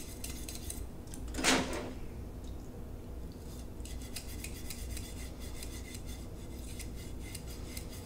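Snake cleaning brush being worked through the brass tubing of a trumpet's third valve slide, the cable and brush scraping and rattling inside the metal in many small quick scrapes, with one louder clank about a second and a half in.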